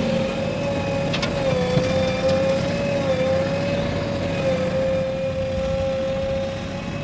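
Heavy diesel machinery running: a low engine rumble under a steady, slightly wavering high whine.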